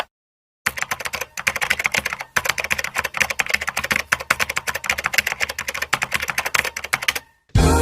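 Rapid typing on a computer keyboard: a fast, continuous run of key clicks that starts about half a second in, pauses briefly around two seconds in, and stops shortly before the end.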